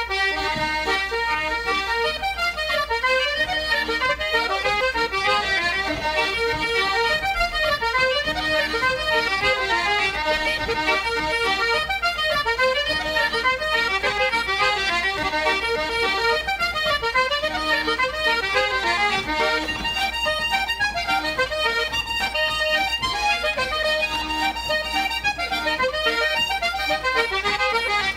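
Irish traditional music played on button accordion and concertina: a steady stream of quick, reedy notes.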